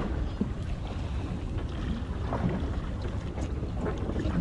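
Steady low rumble of a fishing boat's engine running at idle, with wind buffeting the microphone.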